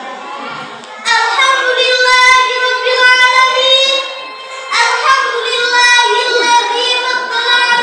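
A young girl's solo voice singing in long, held, wavering phrases: one starting about a second in, a short break, then a second phrase from about five seconds in.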